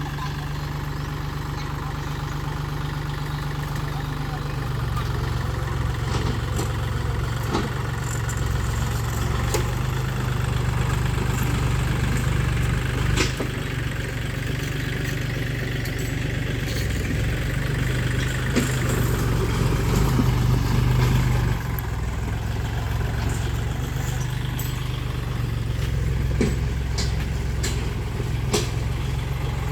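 An engine running steadily with a low hum, growing a little louder partway through, with a few scattered sharp knocks and clicks over it.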